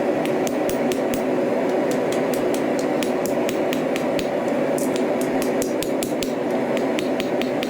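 Hammer striking steel at an anvil during sword forging, a quick uneven run of blows about three a second. A steady hum runs underneath.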